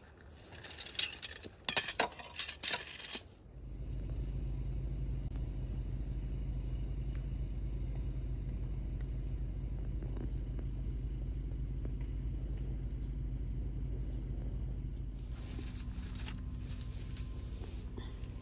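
Metal tent stakes and poles clinking and rattling for a few seconds as they are gathered up, then a steady low hum that carries on to the end.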